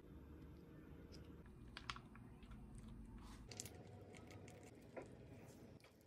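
Faint, sticky clicks and ticks of fingers pressing and rolling soaked rice paper on a wooden cutting board, with a few sharper ticks about two, three and a half, and five seconds in.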